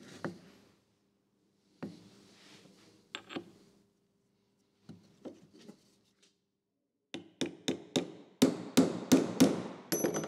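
Hammer blows on a steel punch, peening over the end of a pin in a Maserati V8 sprung engine mount that rests on a wooden block. A few scattered taps come first, then a quick run of about a dozen blows over the last three seconds, with the loudest near the end.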